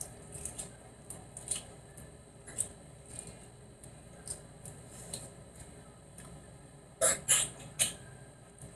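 Boiled duck egg (balut) being peeled by hand: the shell and its membrane crackle and click in small, irregular bits. About seven seconds in come three louder sharp clicks close together.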